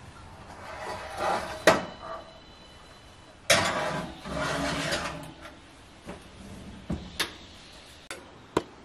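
Metal knocks and scraping as an enamel broiler pan is slid onto the wire rack of a Frigidaire electric oven, with a sharp clank about two seconds in and a longer scrape of the pan going in around the middle. Then a few clicks and knocks as the oven door is shut.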